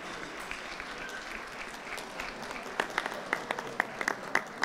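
Audience applauding: a steady patter of many hands clapping, joined about three seconds in by sharp, loud claps close by, about four a second.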